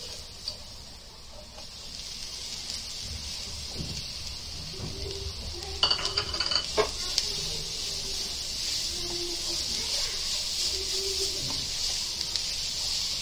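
Shredded chicken, onions and spices sizzling in butter in a frying pan, a steady hiss, while a silicone spatula stirs them, with a few sharp clicks of the spatula against the pan about six seconds in.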